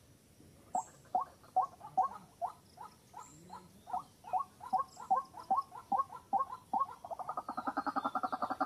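White-breasted waterhen calling: a steady series of short rising notes, about two or three a second, which breaks into a fast stutter near the end.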